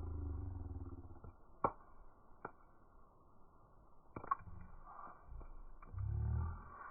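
Wood fire burning, heard slowed down: a deep rumbling whoosh that fades about a second in, a few sharp crackles and pops from the burning wood, then another surge of low rumble near the end.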